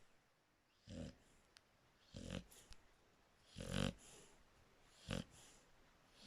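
Shar Pei dog snoring: four snores at an even pace, about one every second and a half.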